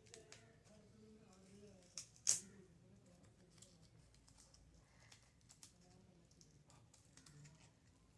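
Faint scattered clicks and taps of small hard parts being handled, with one sharp click about two seconds in.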